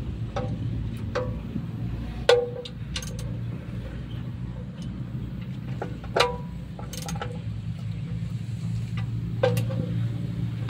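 Sharp metal clinks from a T-handle wrench being worked on nuts atop a single-cylinder stationary engine, a dozen or so at irregular intervals, each ringing briefly, over a steady low hum.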